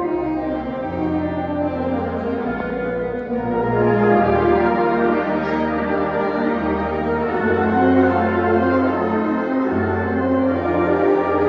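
Community concert band playing: clarinets, saxophones and brass in sustained chords over a low tuba bass line that moves to a new note every second or two.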